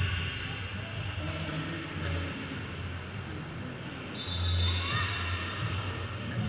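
Roller derby hall sound: quad skates rolling on the floor, mixed with background music.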